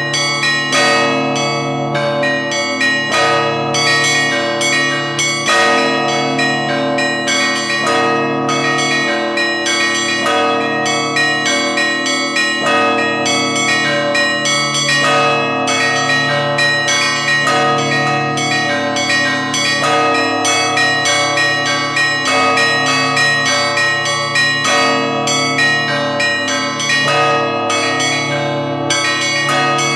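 Moscow Kremlin church bells ringing: many bells struck in quick succession, each ringing on, over a deep steady tone from the large bells.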